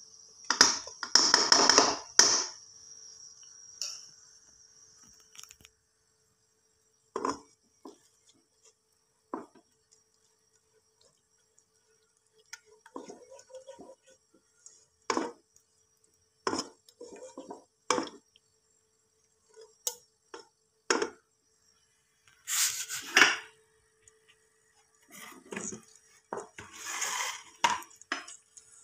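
A non-stick frying pan being handled, with a spatula knocking and scraping against it in scattered sharp strikes. The loudest clatter comes about a second in, and another stretch of clatter comes near the end.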